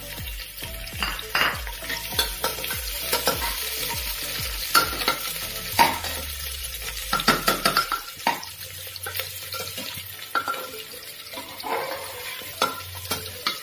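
Chopped onions frying and sizzling in hot oil in a pressure cooker, with a metal spoon stirring and scraping against the pot, giving many short clinks and scrapes over the steady sizzle.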